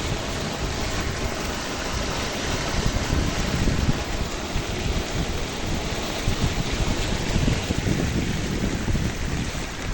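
Rainwater runoff rushing and flowing after a heavy downpour, a steady rush, with gusts of wind buffeting the microphone.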